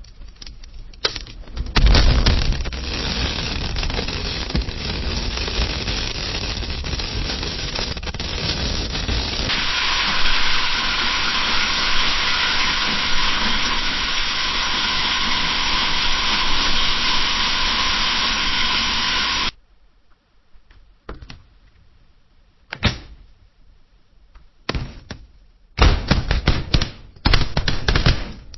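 Wood fire in a fireplace crackling and hissing. The first third is dense crackling, the middle third is a steadier hiss, and in the last third scattered sharp pops and snaps stand out against near quiet.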